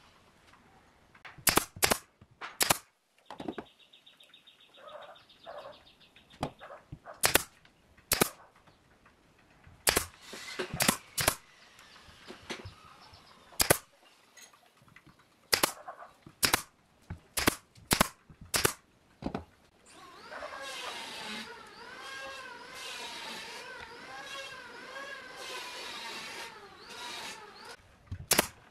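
Pneumatic nail gun firing brads into a wooden frame, a series of sharp pops at irregular intervals, one of them near the end. For several seconds about two-thirds of the way through, a wavering pitched sound runs in the background.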